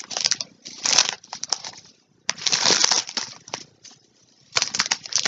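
Crinkly packaging rustling in several separate bursts as it is handled, with short quiet gaps between them.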